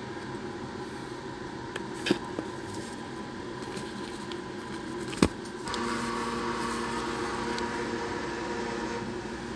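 Handling noise from a phone and its cardboard box: a few light clicks, then one sharp click about five seconds in. Under them runs a steady background hum, which gets louder with a few steady tones just after the sharp click.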